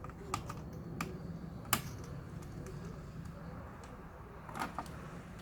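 Sharp, scattered clicks of a laptop's plastic parts and small tools being handled during disassembly, with a quick pair of clicks near the end.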